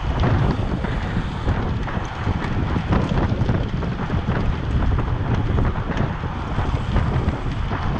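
Wind buffeting the microphone: a loud, steady low rumble and rush that swells and dips slightly with the gusts.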